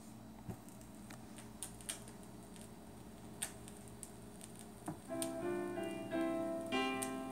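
Vinyl record playing on a Technics SL-DD2 direct-drive turntable: faint groove hiss with a few scattered pops as the stylus runs in, then the record's music starts about five seconds in, a melody of held notes.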